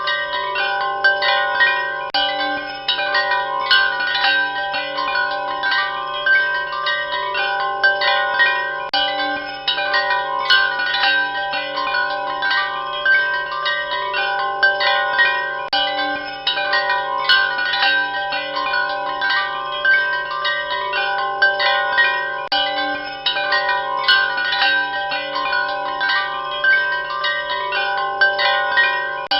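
Wind chimes ringing continuously, many overlapping metal tones struck irregularly several times a second, over a faint steady low hum.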